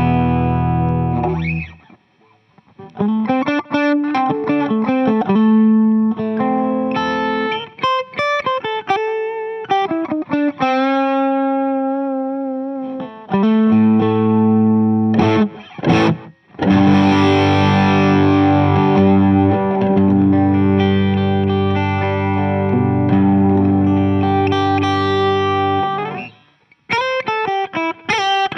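Overdriven electric guitar played through a King of Tone clone dual overdrive pedal into a Fuchs ODS amp simulation: chords left ringing, single-note lines and bends with short pauses, then a strummed chord held and left to sustain for several seconds from about halfway through.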